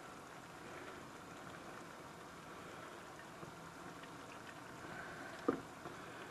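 Shrimp in a skillet of butter and white-wine sauce simmering with a faint, steady sizzle and bubble as tongs turn them. A single sharp knock of the tongs against the pan comes near the end.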